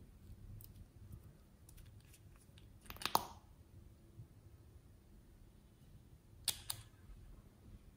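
Small plastic bottle cap clicking: a sharp pop as it is pulled off about three seconds in, then two quick clicks as it is pushed back on near the end, with faint handling ticks between.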